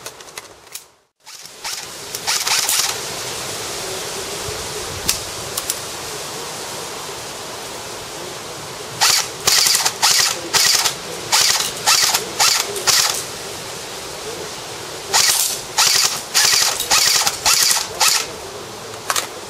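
Airsoft electric gun (AEG), an AK-74M-based build with AR-15 parts, firing in short bursts over a steady hiss: a couple early on, then two quick runs of about eight bursts each, a couple of seconds apart.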